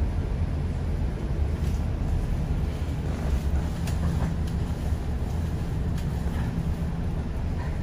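Steady low rumble of a city bus's engine and road noise heard from inside the moving bus, with a few faint clicks.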